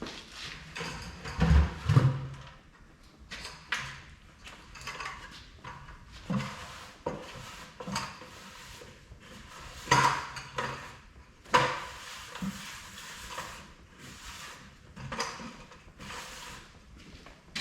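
Intermittent clinks, clanks and knocks of hand tools and metal parts being handled during work on a tractor, with two heavier thumps about one and a half to two seconds in.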